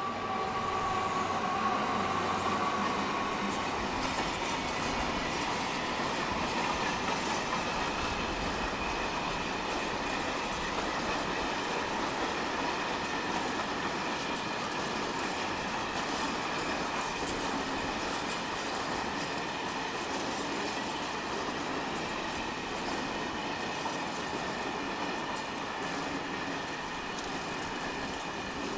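A freight train of grain hopper wagons rolling past. The diesel locomotives' engine sound fades over the first few seconds, leaving a steady rumble of wagon wheels on the rails with light rhythmic clicks and a faint high ringing tone.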